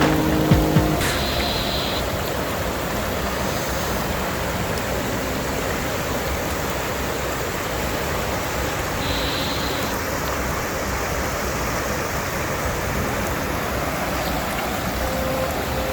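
Steady rush of water from a waterfall, an even unbroken roar of falling water.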